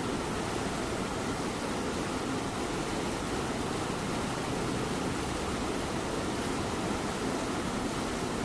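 Steady light rain falling, mixed with a cat's continuous purring.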